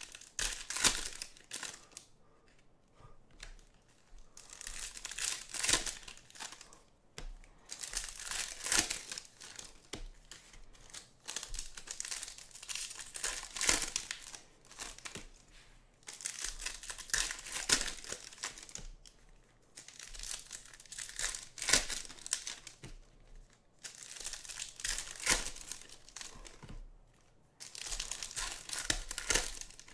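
Foil wrappers of Bowman Chrome baseball card packs being torn open and crinkled, in repeated bursts a few seconds apart with quieter gaps between.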